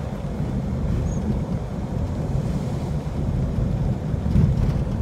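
Steady low rumble of a vehicle driving on a dirt road, heard from inside the cab.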